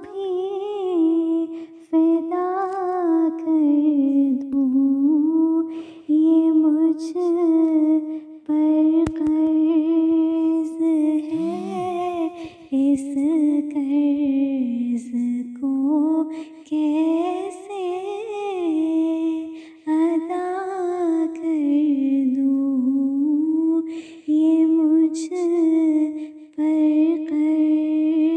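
A woman's voice humming the melody of a naat without instruments, in long phrases of a few seconds with short breaks between them.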